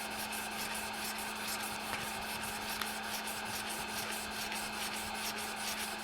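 Wood lathe running with sandpaper held against a spinning cherry spindle, making a steady hiss over a constant low hum from the lathe.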